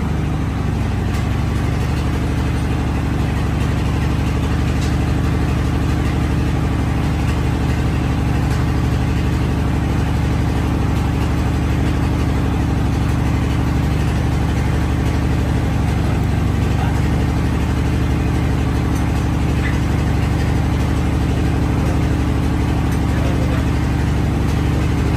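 Metal lathe running steadily with a welded truck drive shaft spinning in the chuck: an even hum from the lathe's motor and gears, with a scraping hiss from a hand tool pressed against the turning weld to dress it.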